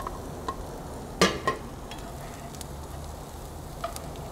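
Diced portobello mushrooms frying in butter in a hot cast iron skillet, stirred with a wooden spoon. Two sharp knocks of a utensil against the pan come just over a second in, with a few lighter clicks later.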